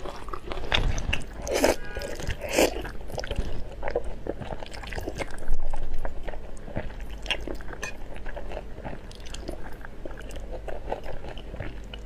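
Close-miked slurping and chewing of thick spicy noodles: repeated wet slurps and mouth noises, with a few louder slurps.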